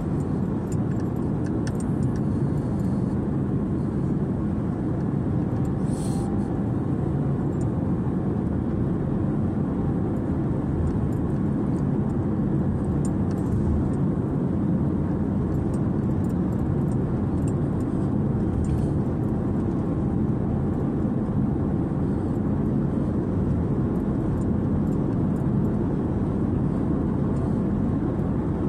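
Steady low road rumble inside the cabin of a car moving along a highway, from the tyres and engine.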